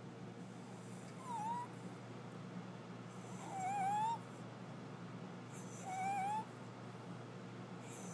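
Small dog snoring with a whistle in its nose: three whistling snores about two seconds apart. Each is a short, wavering whistle with a breathy hiss.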